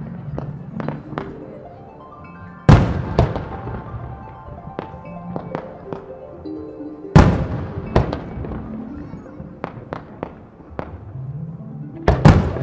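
Japanese aerial firework shells bursting: three loud booms, a few seconds in, around the middle and near the end, the last a quick double, with smaller cracks and pops between them. Music plays underneath.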